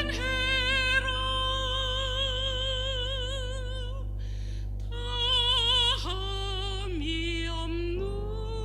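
A woman singing a church offertory solo with wide vibrato, holding long notes over a soft instrumental accompaniment. She takes a breath just after four seconds in, and the melody drops lower about six seconds in.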